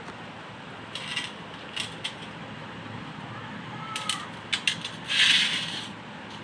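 Scattered rubbing and clicking handling noises over a steady hiss, with a louder scrape about five seconds in.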